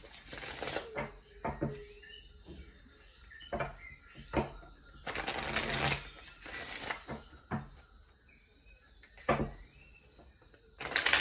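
A tarot deck being shuffled: three bursts of card-shuffling rustle a few seconds apart, with light taps and clicks of the cards in between.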